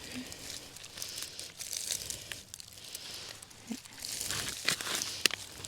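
Digging by hand in heavy clay soil around sweet potato roots: soil crumbling and scraping and plant matter rustling and tearing, with scattered small clicks and one sharp click about five seconds in.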